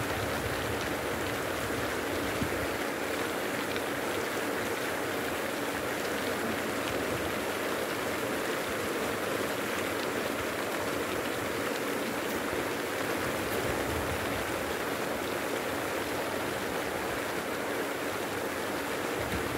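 Steady rushing and splashing of water from a pond surface aerator churning up spray, unbroken and even.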